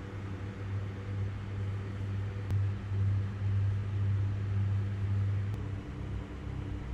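Steady low machine hum with a few evenly spaced overtones, shifting in pitch near the end.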